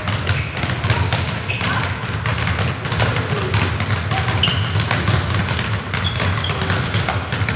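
Many footballs dribbled, kicked and bouncing on a sports-hall floor: a steady run of irregular thuds and taps, echoing in the hall.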